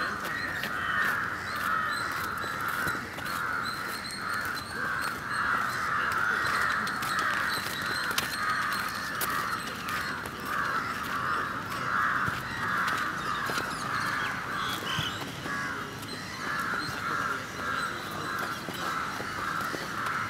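A constant, dense chorus of many birds calling, pulsing without a break, with the odd sharp knock of a football being kicked.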